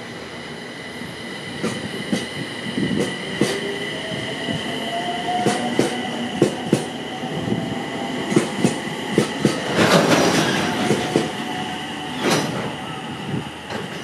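JR East electric multiple-unit train pulling out along the platform. Its traction motors whine in a slowly rising tone as it gathers speed, and its wheels click over the rail joints, often in pairs, with a louder rush of wheel and rail noise about ten seconds in.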